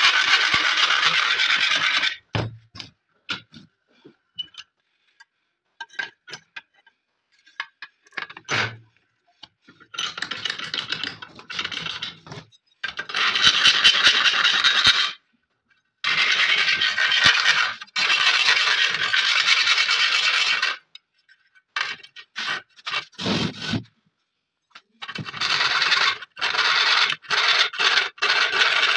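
A flat file scraping back and forth along the edge of an AKM magazine held in a bench vise. The filing comes in several spells of quick strokes, with pauses between them that hold a few light knocks and clicks.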